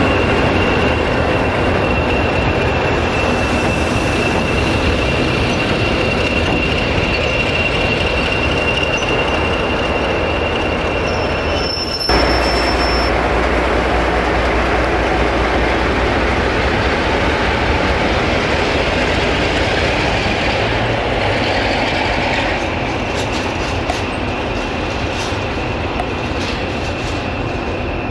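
Class 47 diesel locomotive running past at close range, its Sulzer diesel engine giving a low rumble under a steady high wheel squeal from the rails. There is an abrupt change about twelve seconds in, after which the low engine rumble is heavier; the squeal comes back for the last few seconds.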